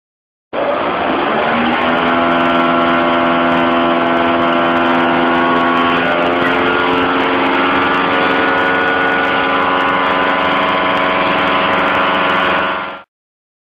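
Skoda Fabia's engine running steadily. Its pitch climbs a little in the first second before settling, and the sound starts and stops abruptly.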